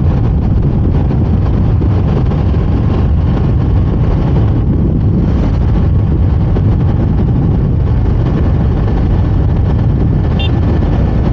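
KTM Duke 390's single-cylinder engine pulling steadily at road speed, mixed with heavy wind rush on the microphone, as the bike gathers speed from about 75 to 87 km/h.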